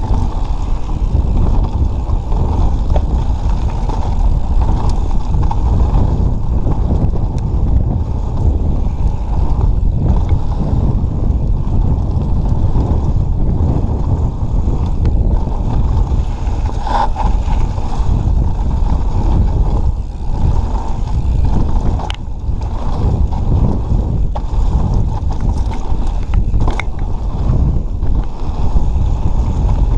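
Mountain bike descending a rocky dirt trail: a steady low rumble of wind buffeting the camera microphone and tyres rolling over dirt and rock, with scattered knocks and rattles from the bike over rough ground.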